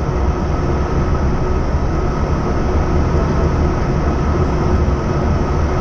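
Steady flight-deck noise of an Airbus A320 on short final: an even rush of airflow and engine noise over a deep rumble, with a faint steady hum.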